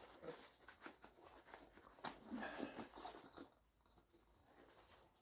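Faint handling sounds of a dry suit glove being worked onto its quick-clamp cuff ring: light clicks and soft rubbing, a little more rustling about two seconds in.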